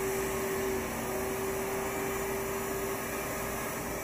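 Shop-Vac wet/dry vacuum running steadily, a constant motor hum with a faint steady tone, as its hose nozzle sucks debris out of the inside of an oven.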